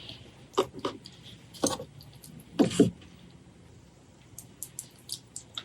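Close-miked eating sounds: a few wet chews and mouth smacks in the first three seconds, the loudest a little before the middle, then a few faint mouth clicks near the end.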